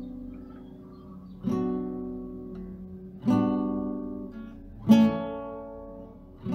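Background music on acoustic guitar: slow strummed chords, three in turn, each left to ring and fade before the next.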